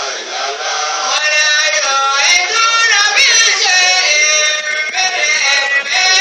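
A man singing into a handheld microphone, his voice sliding up and down through melodic runs.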